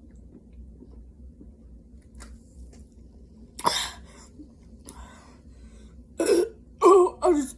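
A person coughing while chugging carbonated Sprite Zero. There is one sudden cough about three and a half seconds in, then a run of louder coughs near the end as the fizzy drink catches in the throat.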